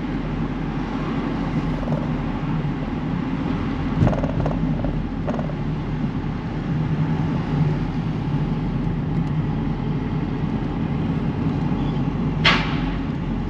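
Car driving along: a steady low engine and road rumble, with a couple of soft knocks about four and five seconds in and a single sharp click near the end.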